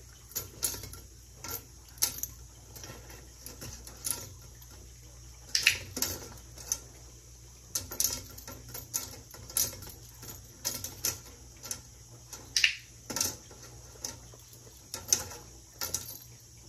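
Training session at a metal colander: sharp clicks of a dog-training clicker and treats clattering into the stainless-steel colander, with the dog's nose rummaging in it. About twenty clicks and taps come at irregular spacing, some in quick pairs.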